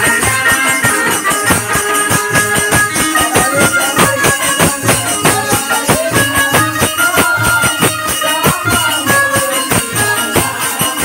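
Folk devotional ensemble music: a harmonium holds melody notes over a fast, steady rhythm of a two-headed barrel drum and jingling small brass hand cymbals.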